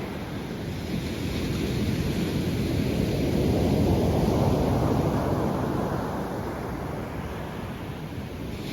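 Sea surf washing ashore, swelling about halfway through and then easing off, with wind on the microphone.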